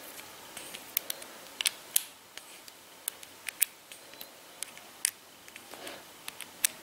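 Irregular sharp metallic clicks and taps as the CO2 magazine of an APS ACP gas blowback pistol is handled: the brass base screw is being loosened and a small CO2 cylinder is fitted.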